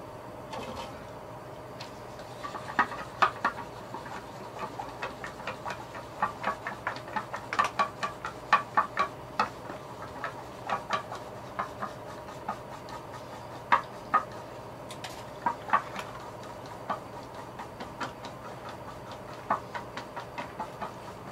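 Pen working on paper laid on a hard tabletop: a long run of irregular light ticks and taps in clusters, over a faint steady hum.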